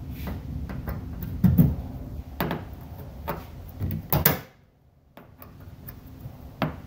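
Screwdriver working the quarter-turn fasteners on a light aircraft's aluminium engine cowling: a handful of separate clicks and knocks as the fasteners are turned loose, over a low steady hum.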